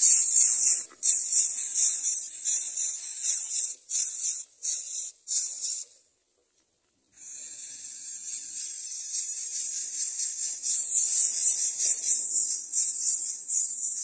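Greater coucal nestlings giving harsh, high-pitched rasping begging calls in repeated bursts. The calls stop completely for about a second near the middle.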